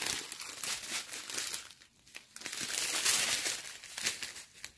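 Small plastic bags of diamond-painting drills crinkling as they are handled, in irregular rustling spells with a short pause about two seconds in.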